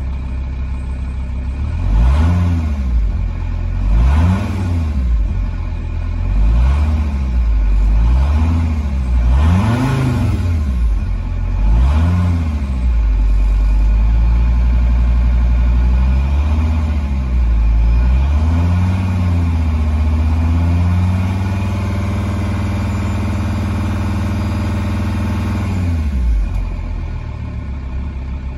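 Cold Volkswagen 2.5 TDI (ACV) five-cylinder turbodiesel, heard from inside the cab, revved in a string of quick throttle blips, each rising and falling in pitch. Later it is held at raised revs for several seconds, then drops back to idle near the end.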